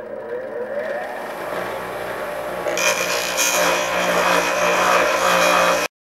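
Delta 6-inch bench grinder motor spinning up with a rising whine, then running steadily. About three seconds in, a PVC pipe is pressed against the spinning wheel and a louder rough grinding hiss sets in. It stops abruptly near the end.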